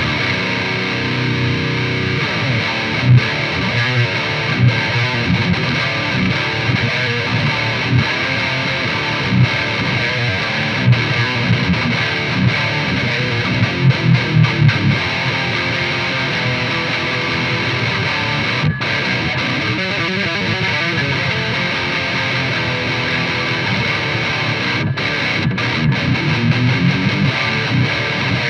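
Electric guitar played through an EVH 5150III LBX tube head and a Mesa Boogie 1x12 cabinet with a Celestion Vintage 30, with heavy distortion; continuous riffing and chugging, picked up by a close mic on the speaker.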